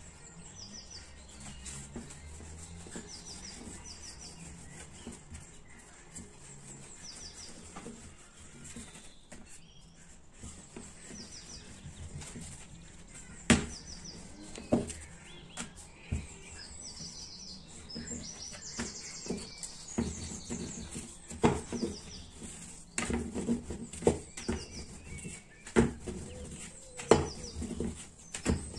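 Small birds chirping repeatedly in short bursts. From about halfway in, this is joined by sharp knocks and clatter, growing busier toward the end, which are the sounds of kitchen work.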